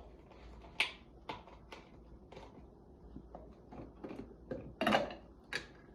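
About a dozen irregular clicks and knocks of hard parts being handled, the loudest about a second in and near five seconds in.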